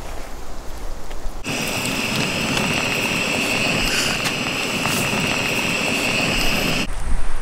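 Breaded trout deep-frying in hot oil in a small backpacking stove pot: a loud sizzle with scattered pops over a steady high whine. It comes in suddenly about one and a half seconds in and cuts off sharply about a second before the end.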